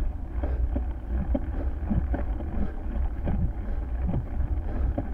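Wind buffeting the microphone in a steady low rumble, with scattered irregular light knocks and clicks over it.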